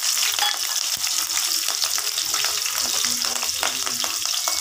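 Garlic cloves and long green chillies frying in hot oil in a kadhai: a steady sizzle with many small crackles and pops.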